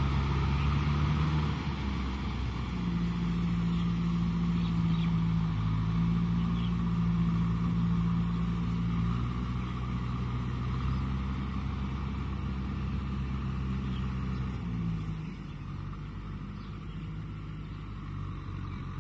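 Kubota tractor's diesel engine running under load while pulling a rotavator through a wet paddy, a steady hum whose pitch shifts a few times. It drops and grows fainter about fifteen seconds in as the tractor pulls away.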